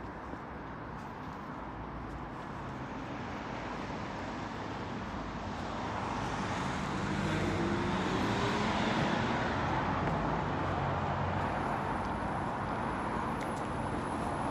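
Road vehicle noise swelling gradually over several seconds, loudest about eight seconds in, then holding steady.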